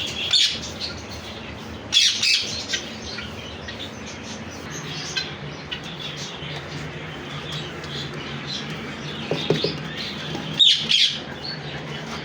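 Parrots squawking and chirping, with loud squawks about half a second in, around two seconds in and again near the end, and smaller chirps between.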